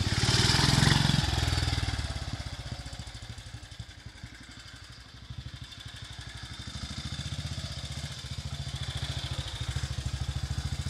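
1941 BSA WM20's 500 cc side-valve single-cylinder engine running at low speed with an even beat of exhaust pulses as the motorcycle is ridden past. It is loudest about a second in, fades as the bike moves away, then grows louder again as it comes back near the end.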